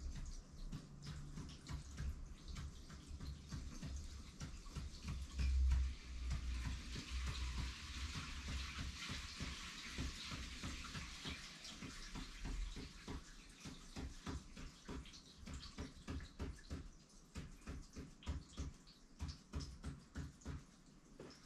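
Ink marker nib scratching short strokes on paper in quick succession, one tally mark after another, a few per second towards the end. Low bumps of handling come through in the first half.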